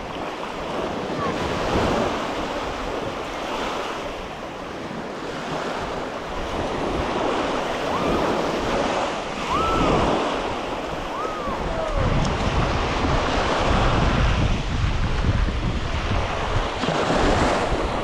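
Surf breaking and washing up the beach, swelling and ebbing, with wind buffeting the microphone, heaviest in the second half. A few short whistle-like calls rise and fall around the middle.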